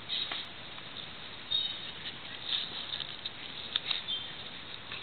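A dog gnawing and chewing on a fallen coconut's husk: irregular crunching and cracking. A bird chirps briefly twice, about one and a half seconds in and near the end.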